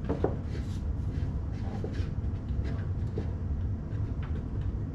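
Scattered light clicks and taps of small plastic and metal hood-latch parts being handled and fitted, over a steady low rumble.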